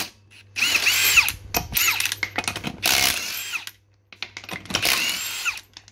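Cordless impact wrench undoing car wheel nuts in several short bursts, its motor whine rising and falling with each one.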